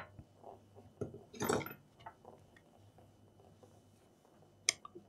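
A laptop being handled and moved on a work mat: a brief scraping clatter about a second and a half in, a few light ticks, then one sharp click near the end.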